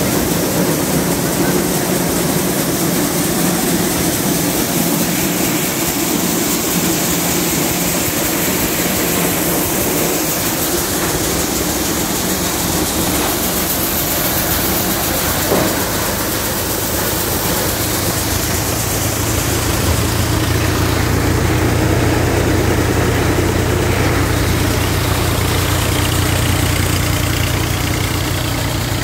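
Multicrop thresher running steadily, powered by a Solis tractor's diesel engine, in a continuous loud mechanical din. The tractor engine's low hum grows stronger about two-thirds of the way through.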